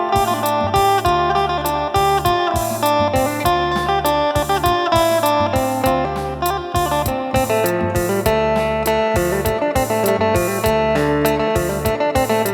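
Phin, the Isan plucked lute, playing a quick running melody during a sound test, with a regular beat and low bass notes underneath.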